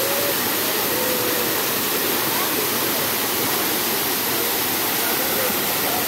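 Waterfall pouring onto rocks close by: a steady, loud, unbroken rush of falling water.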